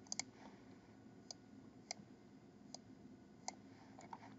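Faint clicks of a computer mouse as a document is worked through on screen: a quick pair at the start, then single clicks roughly every second, over quiet room tone.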